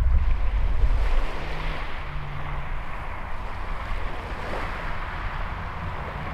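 Breeze buffeting the microphone with a low rumble, heaviest in the first second, over a steady hiss of small waves breaking on a shingle beach.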